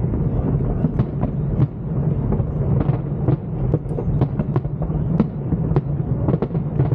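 Fireworks display going off in dense succession: a continuous low rumble of booming shells with many sharp, irregular bangs and cracks.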